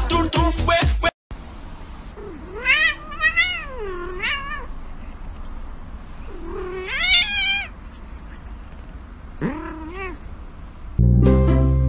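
A cat yowling in three drawn-out calls that waver up and down in pitch, the last one short, as it grapples with a hand rubbing it. Brief music is heard at the very start and again near the end.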